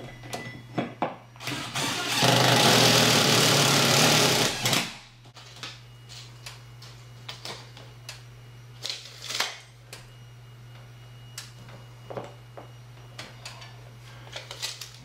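Cordless drill-driver running in one burst of about two and a half seconds, starting about two seconds in, driving a screw into a ceiling-mount plate. Scattered light clicks and knocks of handling follow, over a steady low hum.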